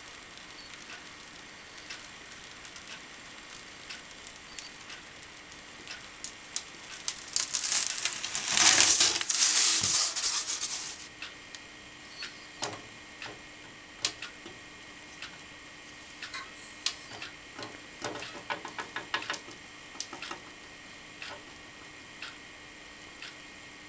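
Hand handling on a workbench: a heavy metal vise and wooden boards being shifted on a styrofoam block, with a loud scraping rustle from about seven to eleven seconds in, then scattered light clicks and knocks, including a quick run of ticks near the end. A faint steady hum sits underneath.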